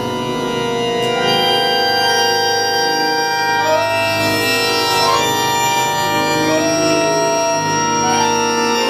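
Titano piano accordion playing sustained, overlapping chords: several reedy notes held together, with single notes shifting pitch one at a time every second or two.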